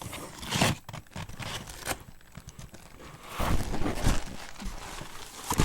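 Packaging crinkling and rustling in irregular bursts as an opened cookie box is unpacked by hand, busiest a little past the middle, with a sharp click near the end.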